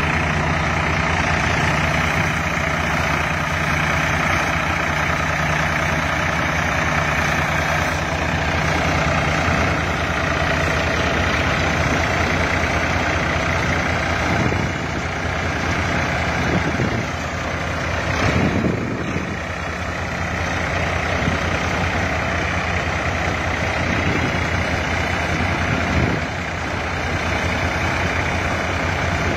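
Farm tractor's diesel engine running steadily as it drives a mounted groundnut-digger elevator, with a broad mechanical noise over the engine's low drone. A brief louder rush of noise comes a little past the middle.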